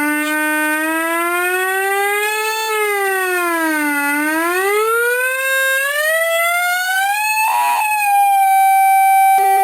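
Homemade drone machine's audio oscillator sounding one siren-like tone that glides slowly in pitch: up, back down, then rising steadily from about four seconds in. Near the end it warbles briefly and settles on a steady higher note.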